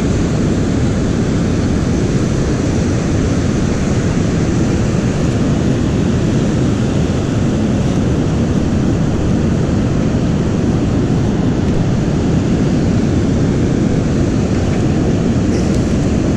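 Steady, loud rush of wind on the microphone mixed with breaking surf, deepest in the low end and unchanging throughout.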